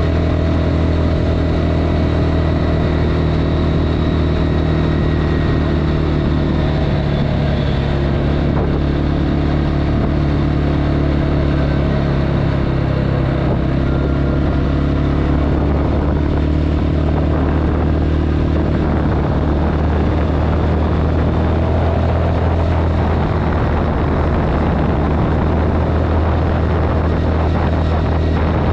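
Hisun Tactic 550 ATV's engine and CVT running steadily while cruising on asphalt, heard from the front rack, with the variator fitted with heavier 21 g rollers.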